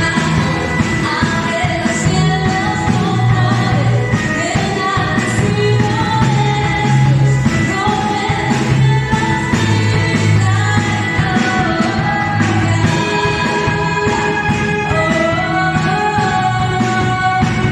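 Worship song: a singing voice over a band with a steady beat and bass.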